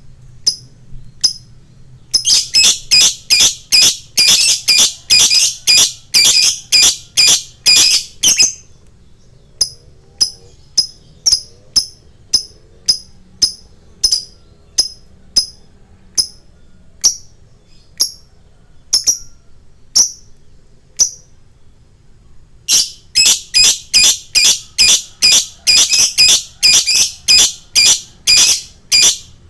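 Fighter lovebird chirping. It sings long runs of rapid, sharp, high chirps, about three a second, with slower single chirps in between, about one a second. This is the kind of recording played as a 'pancingan' to set other lovebirds singing.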